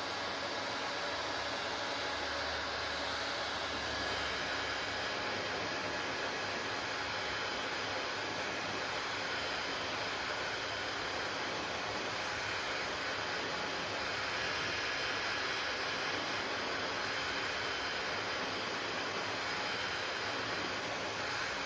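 Hair dryer running steadily: a constant rush of air with faint steady tones in it.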